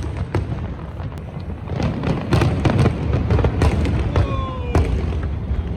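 Aerial fireworks display bursting in rapid succession: a dense run of sharp bangs and crackles over a continuous low rumble, heaviest from about two seconds in until near the end.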